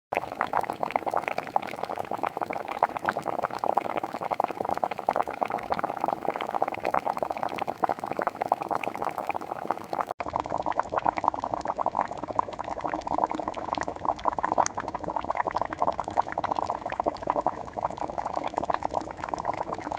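AI-generated sound effect of liquid bubbling steadily, like a pot at a rolling boil, a dense stream of small pops and gurgles. About halfway through it breaks off for an instant and resumes with a duller tone.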